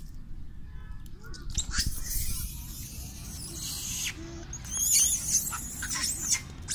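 Long-tailed macaques giving high, wavering squeals, several in a row from about halfway in, after a brief rush of noise about two seconds in.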